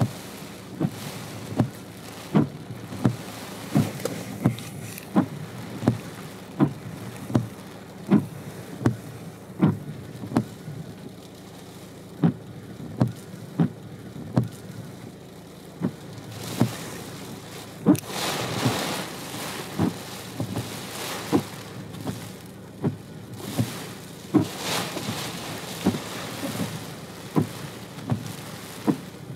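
Sleet and wet snow falling around a car with its engine running, a steady hiss, with a regular soft thump about every two-thirds of a second. The hiss of the sleet swells twice, about two-thirds of the way through and again a few seconds later.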